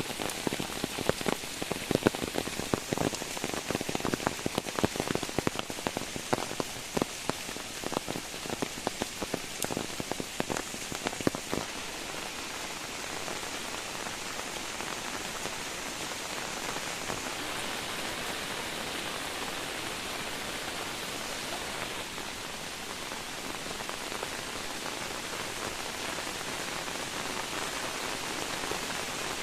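Heavy rain falling steadily. For about the first twelve seconds, many loud separate drops strike close by over the rain, then it settles into an even hiss.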